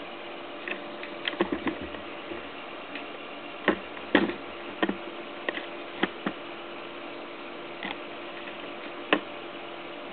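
Stepper motors of a home-built H-Bot 3D printer running on a dry test, a steady motor hum and whine with several fixed tones, as the printhead moves over the bed. Irregular sharp clicks and knocks break in about a dozen times, the loudest around four seconds in.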